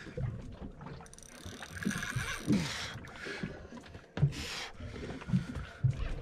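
Water sloshing against the hull of a fishing boat at sea, with wind and a brief hiss. A few short, low grunts fall in pitch as the angler strains against a hooked grouper.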